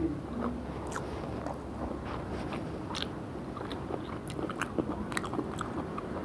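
Close-up eating sounds: a person chewing mouthfuls of mutton biryani, with many small wet clicks and crunches that come thicker in the second half.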